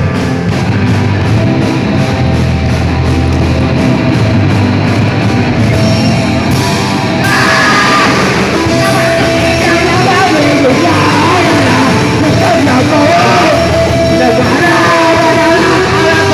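Loud rock music from a full band; a singing voice comes in about seven seconds in and carries the melody.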